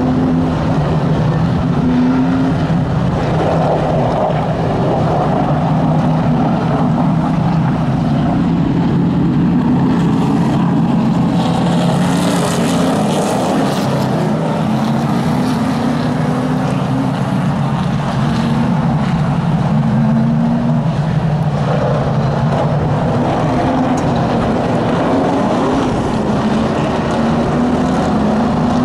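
Super late model stock cars' V8 engines running as the field circles a short oval, the engine pitch rising and falling over and over as the cars go by. A brief rush of hiss comes about twelve seconds in.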